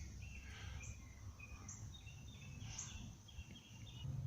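Faint birds chirping, short high chirps scattered over a low background rumble.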